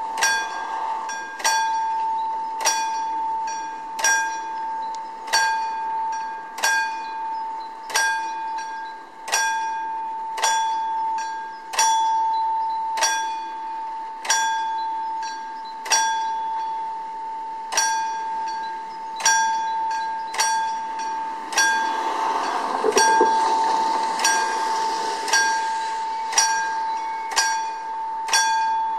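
Level-crossing warning bell on a spoon-wheel (Löffelrad) mechanism, struck at an even pace of about three strikes every four seconds, each strike ringing on into the next. This is the warning that the barriers are coming down. A rushing noise swells and fades about three-quarters of the way through.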